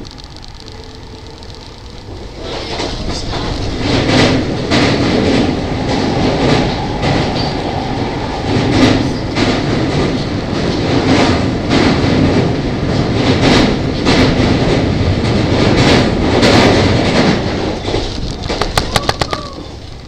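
Tobu 50000 series electric train running at speed, heard from inside the passenger car: a steady rumble of wheels on rail with repeated clacks. It grows louder about two seconds in, then a quick rattle of clicks comes near the end before the noise drops back.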